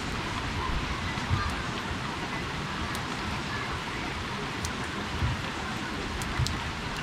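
Steady rainfall, with scattered sharp drips landing on a hard surface and a few soft low thumps.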